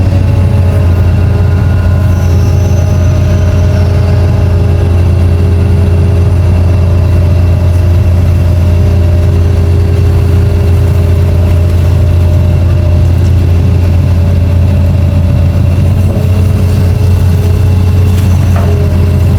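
Long-reach hydraulic excavator's diesel engine running steadily with a deep hum, overlaid with a few higher tones that drift slightly in pitch.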